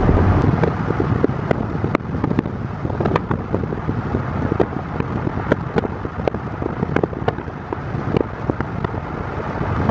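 Road and tyre noise inside a moving Tesla electric car, a steady low rumble with no engine note, with many scattered light clicks and taps throughout.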